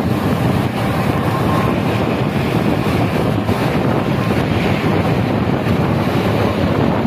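Steady rush of wind buffeting the microphone, mixed with road noise from a tour bus driving on wet roads.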